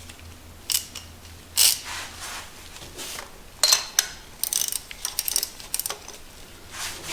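Ratchet socket wrench clicking in short runs, with scattered metal clinks of the tool. The clicking is densest in the middle, as the wrench is worked on a spark plug.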